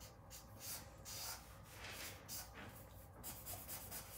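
Felt-tip marker scratching across paper in short back-and-forth colouring strokes, about two to three a second, faint.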